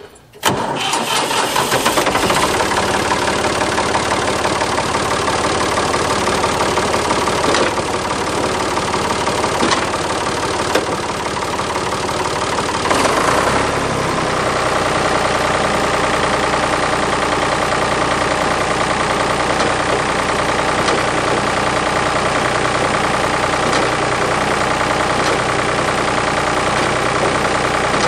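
Ford 555 backhoe's engine starting right at the beginning and running steadily; about halfway through its tone shifts and settles into a steadier, deeper run. It is being run to test hydraulics that stay dead, which the owner puts down to a failed hydraulic pump.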